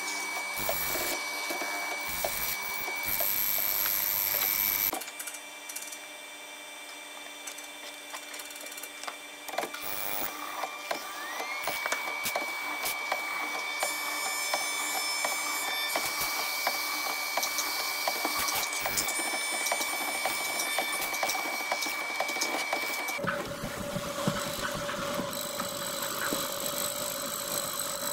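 Woodworking spindle machines cutting red hardwood, first an overhead router and then a vertical mortising bit. The motors whine steadily under the rasp of the cutters. About a dozen seconds in, a motor spins up with a rising whine and then runs at a steady pitch.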